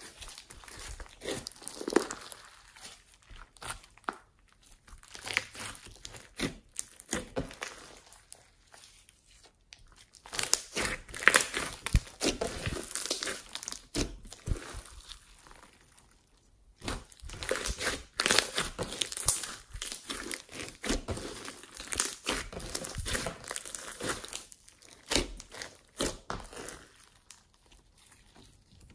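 Hands squishing, stretching and pressing a blue foam-bead slime, making dense irregular crackles, clicks and small pops in bursts, with a few short lulls between handfuls.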